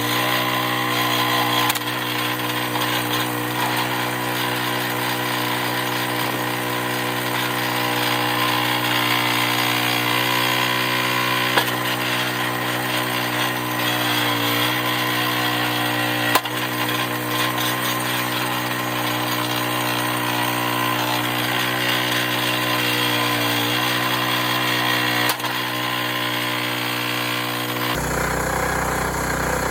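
Small gas engine of a hydraulic log splitter running, its note sagging briefly a few times as the engine loads up while the wedge is forced through wood. A few sharp cracks or knocks stand out, likely wood splitting.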